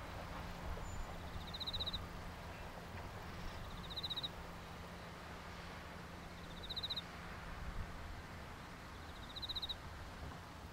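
Quiet rural ambience over a steady low rumble, with a small creature's short, high chirp, a quick pulsing trill, heard four times about every two and a half seconds.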